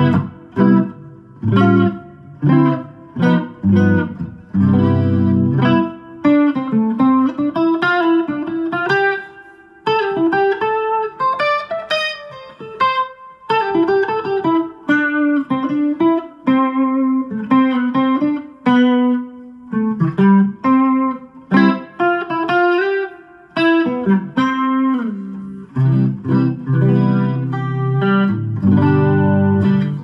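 Semi-hollow archtop electric guitar played through a Line 6 Helix modeller and Mackie Thump Go battery-powered speakers. It plays a jazzy part: chords over low bass notes at the start and near the end, with picked single-note melodic runs in between.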